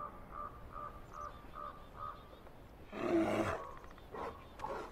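A run of short high chirps about every 0.4 s, then a grizzly bear calling out loudly for about half a second, about three seconds in.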